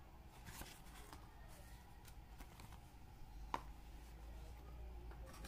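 Faint handling noises of a leather bifold wallet of pull-up leather being opened, fingered inside its pockets and folded shut in the hands, with one sharp tick about three and a half seconds in. A low steady hum sits underneath.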